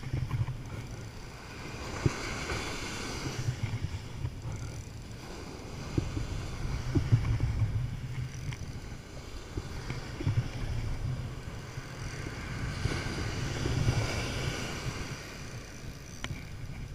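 Wind buffeting the microphone in a low, uneven rumble over surf breaking and washing up a sandy beach; the wash of the waves swells twice, a couple of seconds in and again about two-thirds of the way through. A few faint clicks sound now and then.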